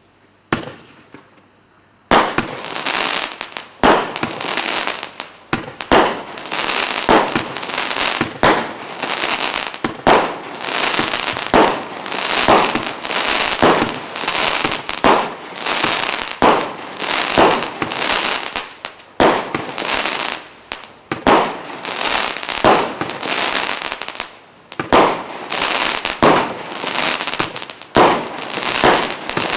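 Standard Fireworks 'Champagne Sparkle' multi-shot barrage cake firing. About two seconds in it starts a rapid string of shots, a little over one a second. Each is a sharp report trailed by a hiss of sparks.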